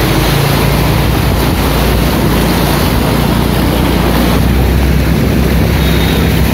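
Floodwater rushing and churning, a loud steady noise, with wind buffeting the microphone.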